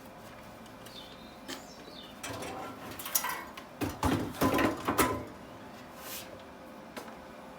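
A burst of workshop handling noise: a run of knocks and clatter over a few seconds, as tools or parts are moved and set down.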